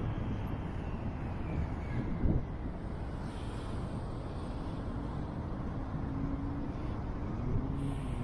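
City traffic ambience: steady road noise, with a motor vehicle passing and its engine note slowly rising over the second half. A couple of low thumps come near the start and about two seconds in.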